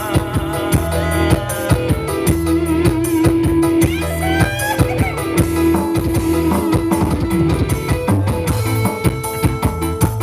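Live band music played over a PA: electric guitar with a sliding melody over bass and a drum kit beating steadily.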